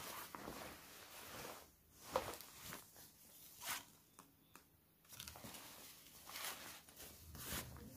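Faint rustling of a pair of snow pants being handled, with their fabric and dangling tags shuffled about. A couple of brief, slightly louder rustles come about two and about three and a half seconds in.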